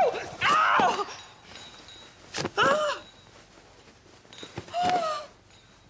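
A woman's pained cries: a falling "ow, ow" about half a second in, then two short high gasping whimpers about two and a half and five seconds in, the middle one preceded by a sharp click.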